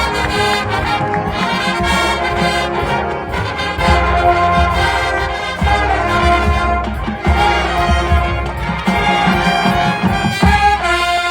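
High school marching band playing, with brass carrying the chords over low drum hits; near the end the band moves onto a long sustained chord.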